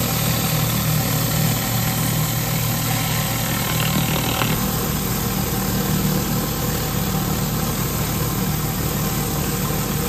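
Pressure washer's gas engine running steadily under an even hiss, with no change in speed.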